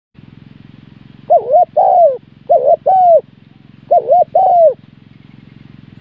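Spotted dove cooing: three calls in quick succession, each a quick double coo followed by a longer drawn-out coo. Under the calls runs a faint, steady low buzz.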